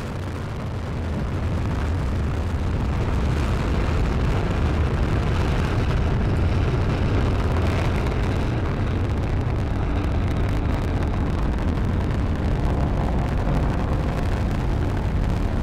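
Falcon 9 rocket's nine first-stage Merlin engines firing during the climb just after liftoff: a dense, low rumble that grows a little louder over the first two seconds, then holds steady.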